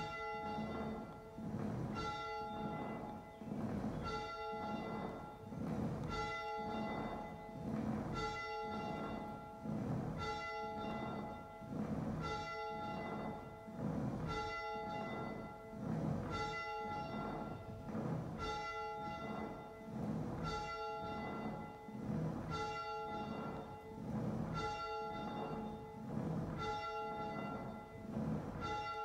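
Church bell ringing, struck about once every two seconds, each stroke ringing on into the next.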